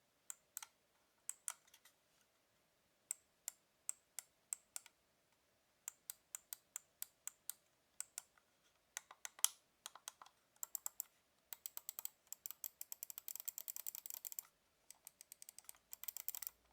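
Side button of a Havit gaming mouse clicked repeatedly close up, each press and release a sharp click. At first the clicks come one or two at a time; from about ten seconds in they come in fast runs.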